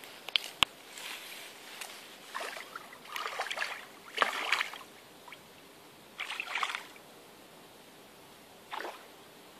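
Water splashing in about five short bursts from a hooked chub being played near the surface, with two sharp clicks near the start.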